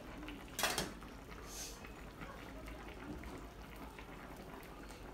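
Curry broth simmering in an electric hot pot, a soft steady bubbling hiss, with one short sharp noise about two-thirds of a second in as greens are dropped into the pot by hand.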